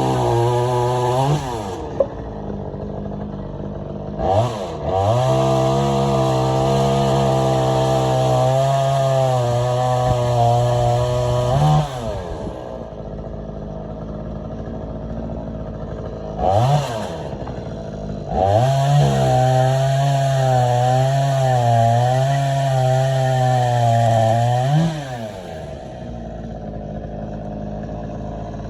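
Champion 45cc two-stroke chainsaw being throttled between idle and full revs. It drops to idle about a second in, then gives two long runs at high revs of about seven seconds each, each after a quick blip of the throttle, falling back to idle after each. It stops right at the end.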